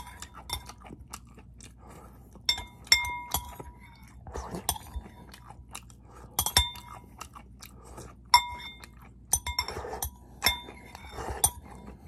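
Close-up chewing of sweet corn kernels, broken by a metal spoon clinking against a ceramic bowl about nine times, each strike ringing briefly.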